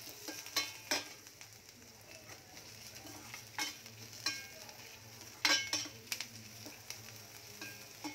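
A spoon stirring chopped onions, garlic, dried chillies and curry leaves as they fry in oil in a stainless steel pan: a soft steady sizzle with irregular scrapes and clinks of the spoon against the pan, some leaving a brief metallic ring.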